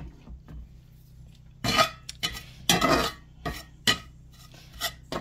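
Metal slotted spatula scraping and stirring toasting breadcrumbs in a cast iron skillet: a run of short scrapes and clinks starting about a second and a half in.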